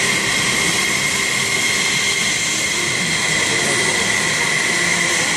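Fighter jet engine running on the ground: a steady high whine over an even rushing hiss.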